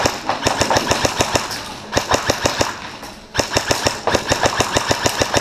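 Airsoft electric gun (AEG) firing on full auto: long bursts of rapid shots, roughly ten a second, with a brief pause about three seconds in.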